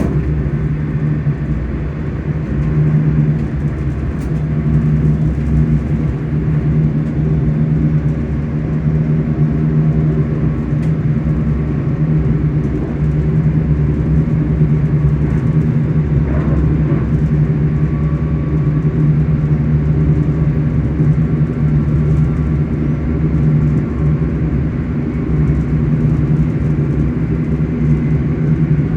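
ScotRail Class 385 electric train's traction motors humming steadily over the rumble of the running train, heard from inside the carriage.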